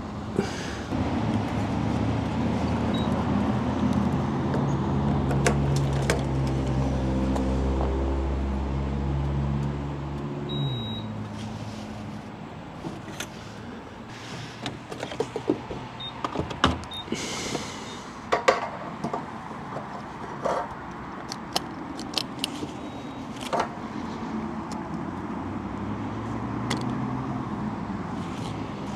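Kawasaki Ninja 650's parallel-twin engine running at low revs, then shut off about ten seconds in. Scattered clicks and knocks follow, with a short beep just after the engine stops.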